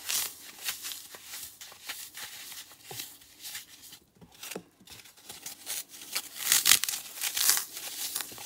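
Oven-baked floral foam crumbled between the fingers: many short crunches and crackles as the dry foam breaks apart, with a brief lull about four seconds in and the loudest crunching near the end.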